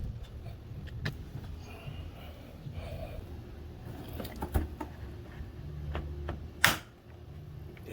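Scattered clicks and light knocks of hands working with tools and parts, with one sharp, louder knock about six and a half seconds in.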